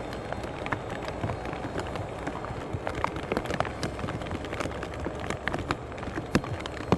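Wind and rain noise: a steady low rumble with many irregular crackles and knocks.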